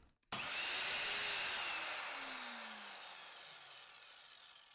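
Evolution R185SMS 185 mm sliding mitre saw's motor and blade spinning down: a whirring whine that cuts in suddenly, then falls in pitch and fades away over about four seconds as the blade coasts to a stop.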